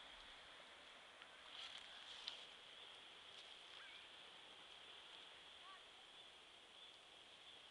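Near silence: faint woodland ambience with a steady high hiss, a few soft clicks about two seconds in, and a few faint short chirps.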